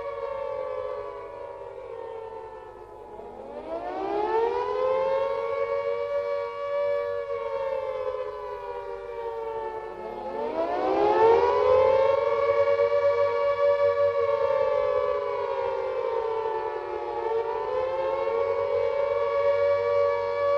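World War II air raid siren sounding the air raid warning with a wailing pitch. Its pitch sinks low and then climbs steeply back to a held high note twice, about 3 seconds and 10 seconds in, with a smaller dip and recovery near the end.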